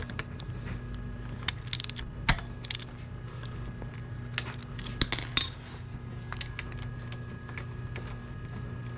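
Irregular metallic clicks and clinks of a 10 mm socket on an extension working the oil-screen bolt on a 2022 Yamaha YZ450F's engine, with louder clusters about two and five seconds in. A steady low hum runs underneath.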